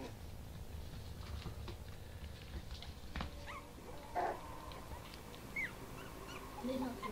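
Four-week-old Bichon Frise puppies giving short, high squeaks and small yips while play fighting. The squeaks start about three seconds in, with the loudest just after four seconds and another near the end.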